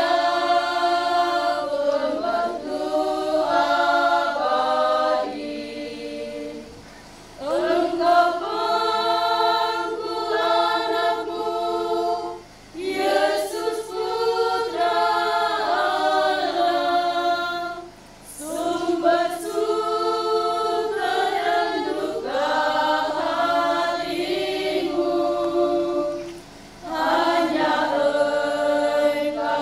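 Women's choir singing a hymn unaccompanied, in long sung phrases separated by brief pauses.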